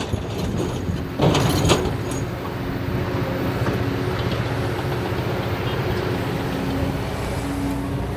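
Diesel engines of an excavator loading a dump truck, running steadily with a low hum, and two loud knocks about a second in as material strikes the truck bed.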